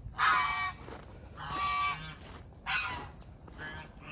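Geese honking: three loud honks about a second apart.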